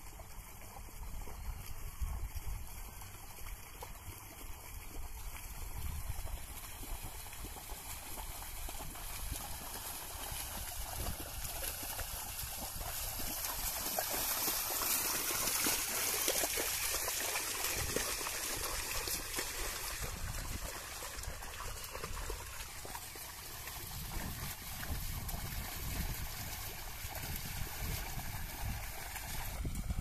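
Muddy water splashing and sloshing as a pair of plough bulls and the plough wade through a flooded paddy field, loudest about halfway through as they pass close.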